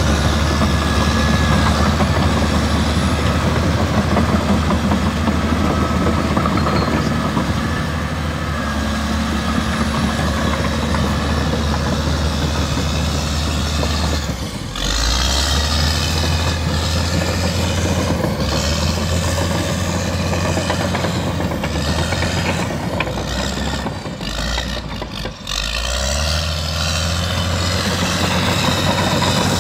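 Caterpillar D6R LGP crawler dozer's diesel engine running steadily as the machine drives and manoeuvres. The engine note drops briefly about halfway through and again for a couple of seconds near the end.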